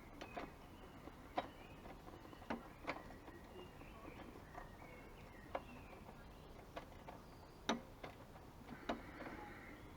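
Hand tools working a nut onto a motorcycle swing-arm pivot bolt: scattered sharp metallic clicks and taps at irregular spacing, the loudest about three quarters of the way through.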